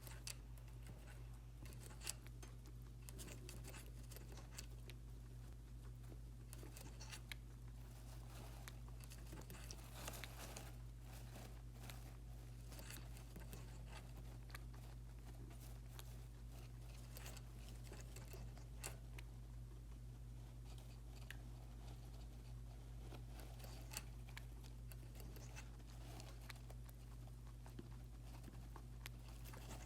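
Guinea pig drinking water, heard as faint, quick, irregular clicks and ticks over a steady low hum.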